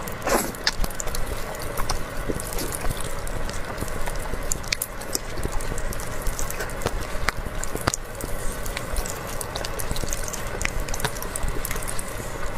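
Close-miked eating sounds: wet slurping and squishing of soft jelly desserts, with many small sharp clicks of mouth and fork against plastic cups.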